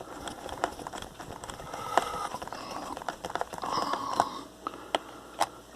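Small screws being tightened with a screwdriver into the plastic memory-compartment cover on the underside of a laptop: irregular clicks and light scraping, with a few sharper ticks about two seconds in and near the end.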